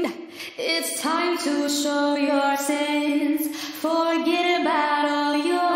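Unaccompanied female vocal sung through the Baby Audio Crystalline reverb plugin on its Basic Plate preset. Several held notes slide into pitch, each with a smeared reverb tail.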